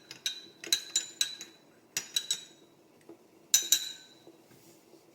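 A metal spoon clinking against a cup: short ringing clinks in four quick groups, the loudest pair about three and a half seconds in.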